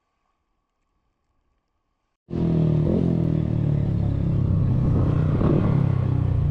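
Near silence with a faint steady hum, then about two seconds in an abrupt cut to a motor vehicle engine running close by, loud and steady.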